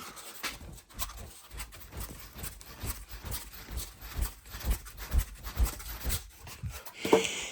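Something being waved back and forth to fan test smoke out of a smoke detector: uneven rustling whooshes with soft thuds, about two strokes a second.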